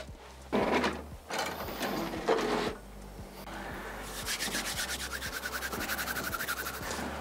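Epson EcoTank ET-8550 dye-ink inkjet printer starting a print job: a few rasping bursts as the paper is drawn in, then from about four seconds in a fast, even rhythmic chatter from the printer's mechanism.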